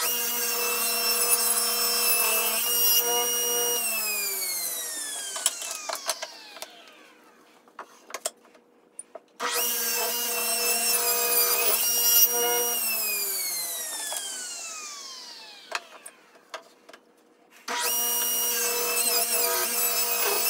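Table saw switched on and ripping a narrow strip of hardwood, then switched off, its blade whine falling as it spins down. This happens twice, with a few knocks of wood being handled between cuts, and the saw starts a third time near the end.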